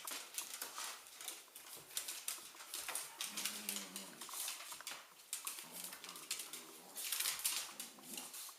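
Dogs at play: claws clicking and scrabbling on a hard floor, with two low play growls about three and six seconds in.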